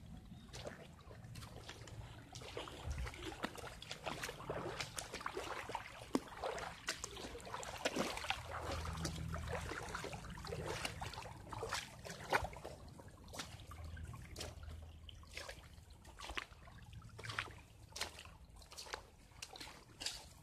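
Footsteps wading along a shallow creek: irregular splashes and sloshes of water with each step.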